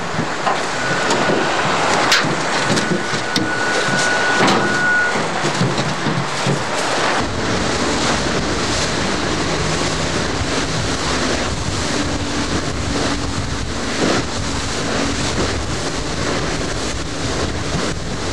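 Outboard motor running under way on a small open boat, a steady mix of engine noise, water rushing past the hull and wind buffeting the microphone. A faint high whine holds for a few seconds near the start, and a deeper rumble joins about seven seconds in.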